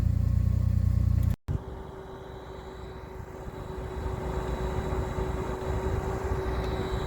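Heavy construction machine's engine running with a steady low rumble. About a second and a half in, the sound cuts off abruptly. A quieter engine rumble with a steady whine picks up and slowly grows louder.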